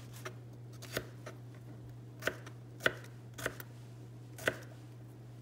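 Kitchen knife dicing green bell pepper on a plastic cutting board: irregular sharp knocks of the blade striking the board, unevenly spaced, over a steady low hum.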